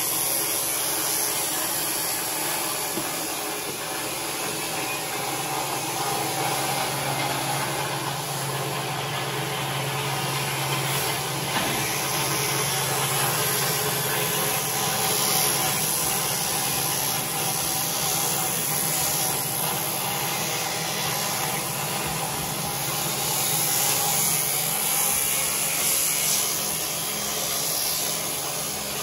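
Electric sheep shears running steadily as they cut through a sheep's fleece: a constant motor hum with a high buzzing hiss, swelling slightly as the cutter bites.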